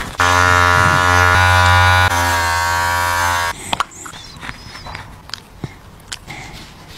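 Small handheld electric trimmer buzzing steadily, then switched off about three and a half seconds in; faint handling clicks follow.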